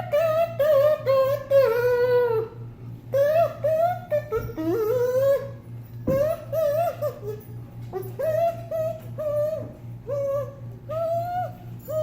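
A kazoo played as a wavering, buzzy tune of short notes, with a sharp click about six seconds in.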